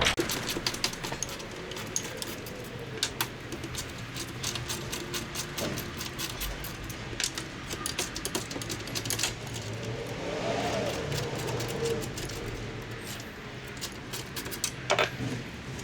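Ratchet with a 10 mm socket backing out the three bolts that hold a radiator fan motor, with many irregular light metallic clicks and clinks of the tool and the loosened bolts.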